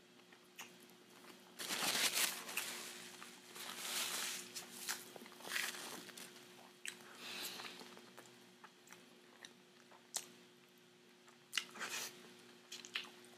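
Close-miked chewing of a mouthful of burger with bacon and lettuce: irregular wet crunches, heaviest about two seconds in, easing off through the middle, with another cluster of crunches near the end.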